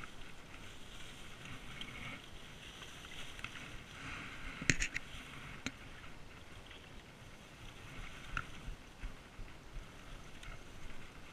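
Bankside grass rustling and light water sounds as a hooked pike is drawn into the shallows and landed by hand, with a sharp click near the middle and a fainter one a second later.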